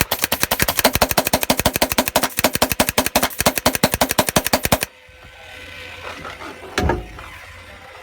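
2000 WGP Autococker paintball marker firing a rapid, even string of shots that stops about five seconds in. A single thump follows near the end.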